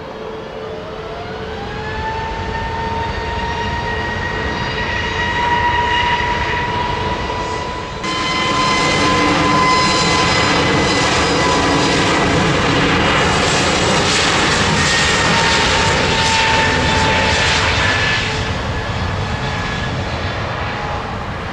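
Airbus A320neo's CFM LEAP-1A turbofans spooling up to takeoff thrust. A whine rises in pitch over the first couple of seconds and then holds as the engine noise builds. It becomes a loud, steady roar during the takeoff roll and eases off near the end.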